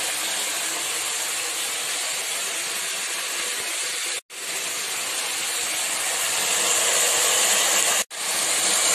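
Spiced curry gravy sizzling in a kadai over a gas flame as fried Bombay duck pieces are added, a steady hiss. The sound cuts out abruptly twice, about four and eight seconds in.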